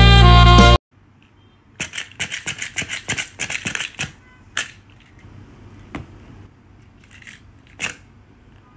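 Saxophone music cuts off under a second in. A quick run of sharp clicks from a small black hand-held tool follows for about two seconds, then a few single clicks spaced well apart.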